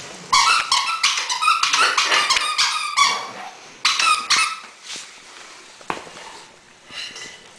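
A squeaky plush dog toy being bitten by a pug, squeaking rapidly over and over for about three seconds. A second, shorter burst of squeaks comes about four seconds in.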